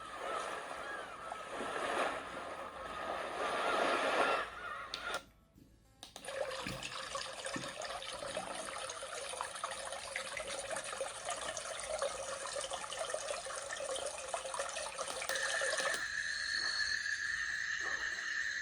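Portable white noise machine playing its recorded nature sounds: ocean surf, which stops about four seconds in; after a brief gap, a trickling stream takes over. Near the end a chorus of frogs and insects with steady high chirping comes in.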